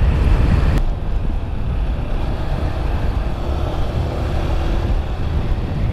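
Motorcycle riding at road speed: engine running steadily under heavy wind rumble on the microphone. The sound changes abruptly about a second in.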